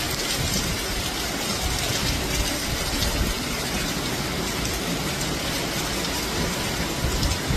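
Heavy rain pouring steadily in strong wind, with a gusting low rumble of wind on the microphone.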